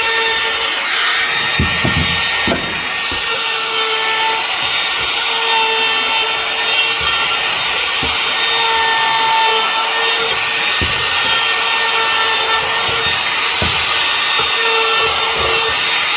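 A woodworking power tool cutting wood, running steadily, with a few brief knocks.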